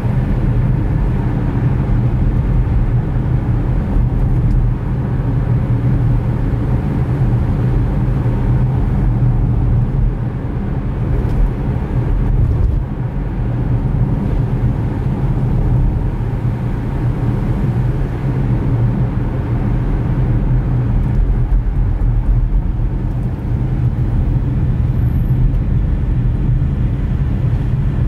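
A car driving, heard from inside the cabin through a drive recorder: a steady low rumble of engine and road noise that swells and dips slightly.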